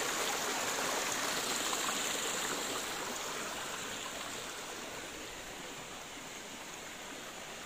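Shallow rocky creek running over and between boulders: a steady rush of flowing water that grows slightly fainter toward the end.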